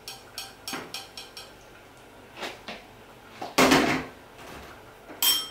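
Kitchenware being handled: a few light clicks in the first second and a half, a louder knock about three and a half seconds in, and a short clink that rings briefly near the end.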